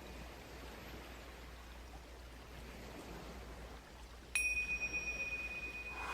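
Quiet hiss, then a little over four seconds in a single struck metal chime rings out with one clear high tone and keeps ringing.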